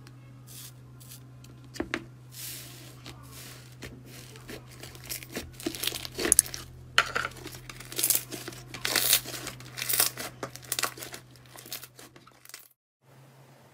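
Hands squeezing and pulling green slime out of a clear plastic tub, giving irregular crackling, popping and tearing sounds. The crackles start sparse, grow dense and loud through the middle, and thin out near the end.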